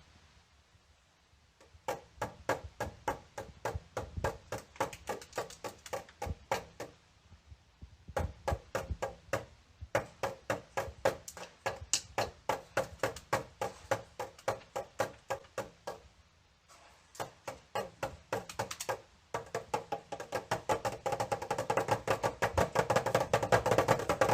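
Rapid, rhythmic wooden-sounding knocking, about four knocks a second, in runs broken by short pauses and growing louder and denser near the end.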